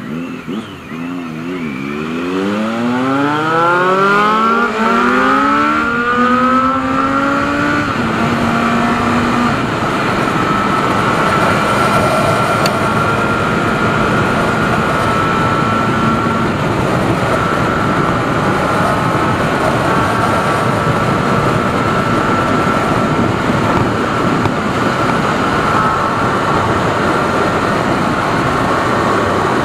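Motorcycle engine accelerating hard, its pitch climbing over the first several seconds, then running steadily at high road speed under heavy wind noise.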